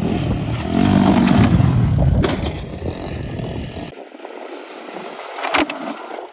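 Yamaha Moto-4 four-wheeler's engine running and revving up about a second in. The engine sound drops away abruptly at about four seconds, followed by a couple of sharp knocks near the end.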